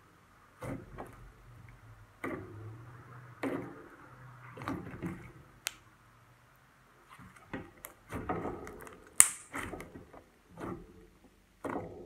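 Pink foam-bead slime being pressed, kneaded and stretched by hand, giving irregular sticky squishes with small pops and clicks. One sharp pop about nine seconds in is the loudest.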